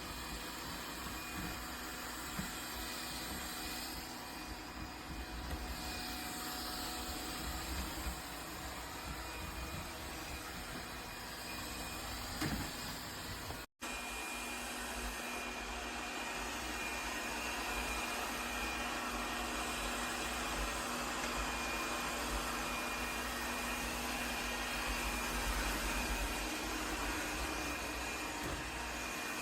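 Laresar Clean L6 Nex robot vacuum running steadily: an even suction-fan hiss with a faint high whine. It drops out for an instant about 14 seconds in, then carries on.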